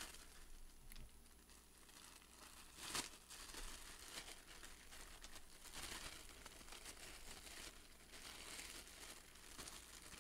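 Small clear plastic bag crinkling faintly as it is handled, with a louder crackle about three seconds in.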